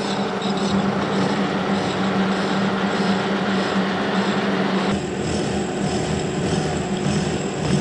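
Kearney & Trecker horizontal milling machine running steadily, its arbor-mounted cutter milling a spline in a long shaft, with a steady hum and a high whine. The sound changes abruptly about five seconds in.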